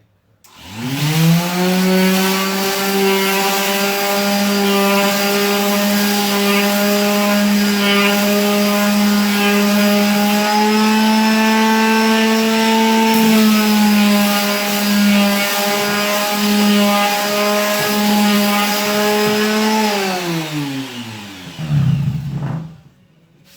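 Electric sander starting up and running steadily as it sands the gesso-primed edge of a canvas, loud. About twenty seconds in it is switched off and winds down, falling in pitch, with a short low rumble as it stops.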